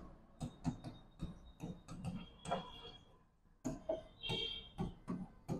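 Marker pen writing on a whiteboard: a string of faint short taps and scratches with brief high squeaks as the words are written.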